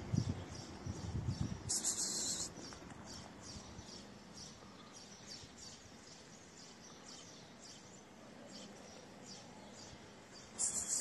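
Quiet outdoor ambience with faint, repeated high chirps of small birds. Rustling handling noise in the first couple of seconds, and a short hiss about two seconds in and again near the end.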